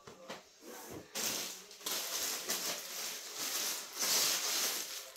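Plastic packaging bag rustling and crinkling as it is handled and pulled open. The crinkling starts about a second in and grows louder from about two seconds in.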